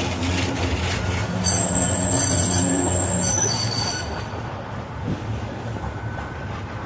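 Manchester Metrolink tram running past with a low rumble that fades away. Its wheels squeal in several high tones for a couple of seconds, beginning about a second and a half in.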